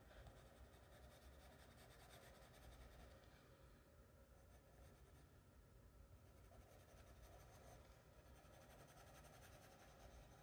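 Faint scratching of a charcoal pencil on sketchbook paper in quick, short shading strokes, easing off for a couple of seconds around the middle.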